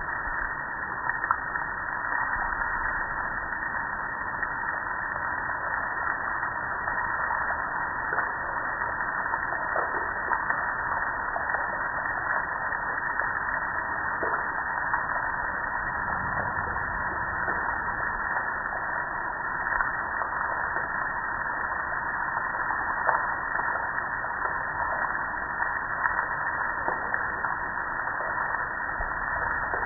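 Water spray hitting a metal gas grill: a steady splashing hiss with scattered light spatters.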